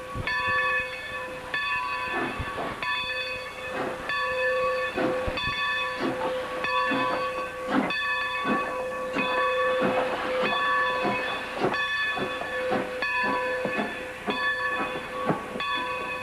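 Steam locomotive's bell ringing steadily, about one and a half strokes a second, over hissing steam and the chuff of the engine's exhaust as the train moves.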